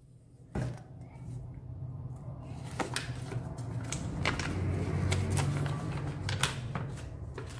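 Paper instruction leaflet being pulled out and unfolded by hand: rustling with scattered crisp crackles, over a low rumble that swells in the middle.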